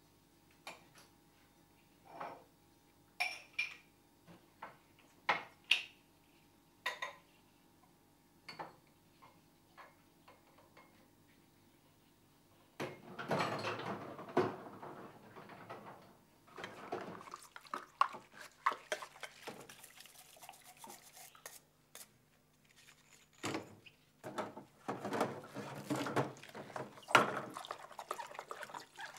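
Glass and crockery clinking one piece at a time as they are taken from a kitchen cupboard, then, about halfway through, water splashing in a sink with glasses and dishes clattering as they are washed up.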